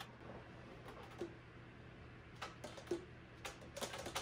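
Faint, irregular small clicks and taps of hands working a tenor saxophone's keywork at the repair bench, about eight in all, over a steady low hum.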